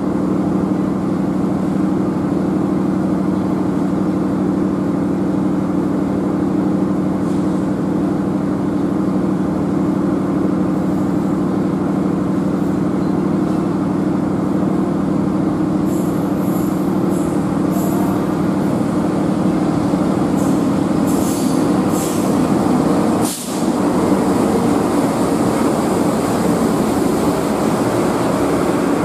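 Diesel locomotive engine running with a steady low hum, with a few short high-pitched squeaks from the train near two-thirds through. After a cut, a noisier rumble as a locomotive rolls past along the platform.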